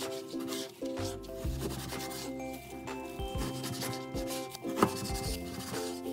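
Kitchen knife slicing raw chicken thigh on a paper-covered cutting board: scraping strokes and several knocks of the blade against the board, the sharpest about five seconds in. Background music plays throughout.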